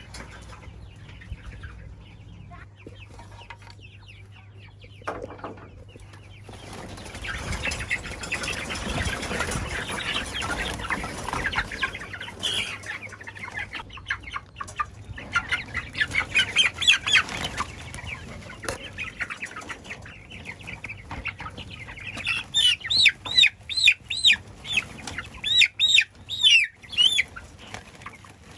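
Domestic chickens clucking, with a flurry of noise like flapping wings starting about seven seconds in. Near the end comes a run of loud, sharp calls, about two a second.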